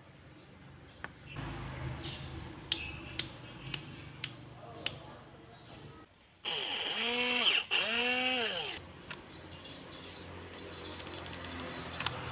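Five sharp clicks about half a second apart, from a small rocker switch being flipped. They are followed by two louder tones, about a second each, that rise and then fall in pitch.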